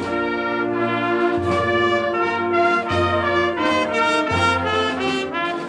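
A Spanish Holy Week cornet-and-drum band (banda de cornetas y tambores) playing a processional melody. The cornets hold long notes that change pitch every half second or so, over the drums.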